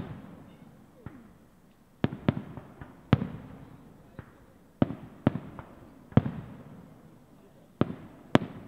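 Aerial fireworks shells bursting in an irregular series of sharp bangs, about ten in all, some in quick pairs. Each bang is followed by a rolling echo that dies away.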